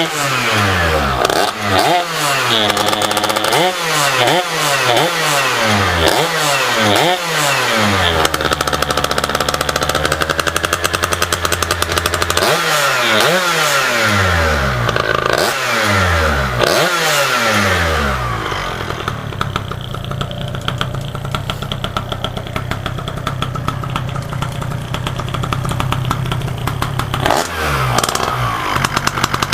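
A small engine revved in a string of quick throttle blips, each one falling back, then running more steadily for the last third, with one more blip near the end. It is coughing up water it has taken in.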